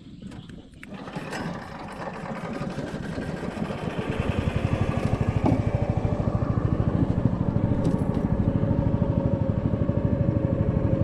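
Small boat engine running, growing louder over the first few seconds, then holding a steady, fast, even putter.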